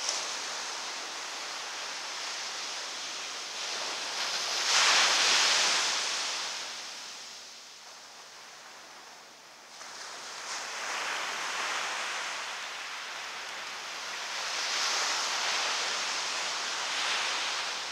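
Ocean surf breaking and washing up the beach: a steady hiss that swells loudest about five seconds in, eases off, then builds again through the second half.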